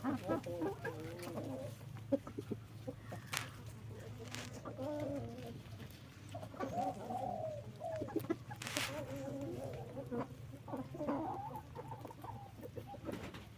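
Đông Tảo chickens clucking in wavering calls on and off over a steady low hum, with three brief hissy noises between them.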